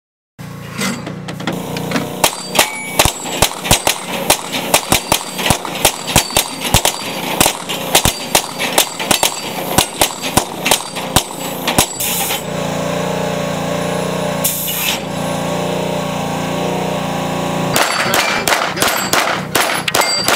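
Rapid strings of pistol shots at AR500 steel pop-up targets, about three a second, with high ringing from hit steel plates. In the middle the shooting stops for several seconds and a steady machine sound with a wavering pitch runs, before the shots start again near the end.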